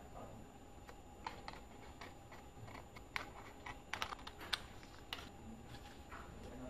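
Scissors snipping paper in short, irregular cuts: a scattering of faint clicks, busiest a little past the middle.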